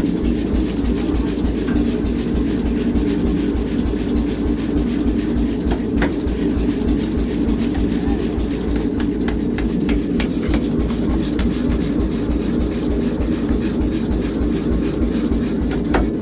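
A workshop machine running steadily: a constant low rumble with a fast, even high ticking over it.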